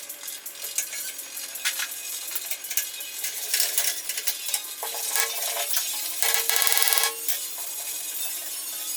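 Metal parts and tools clinking and clattering during the teardown of a vintage Unisaw table saw, with a short pitched buzz lasting about a second near the two-thirds mark.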